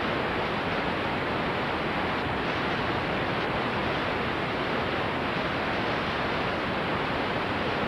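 Steady, even hiss with no tone, rhythm or separate sounds in it.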